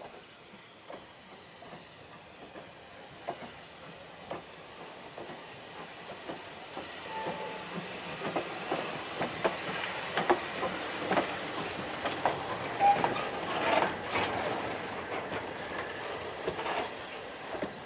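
BR Standard Class 2MT 2-6-0 steam locomotive running light past, with no train behind it. It grows louder as it draws near, its wheels and motion clanking and knocking over a steady hiss of steam. The knocks are loudest a little past halfway, as it goes by.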